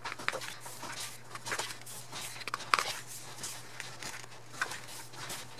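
Pages of a glossy album photobook being turned and handled: light paper rustles and a few soft taps and clicks, over a faint steady low hum.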